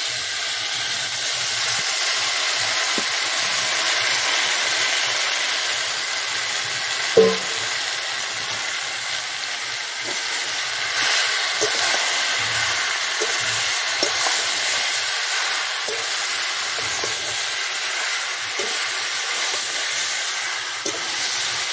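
Soaked dried jujubes (kul) frying in hot mustard oil in a karahi, a steady sizzle as the wet fruit hits the oil, with occasional light clicks of a metal spatula stirring them and one louder click about seven seconds in.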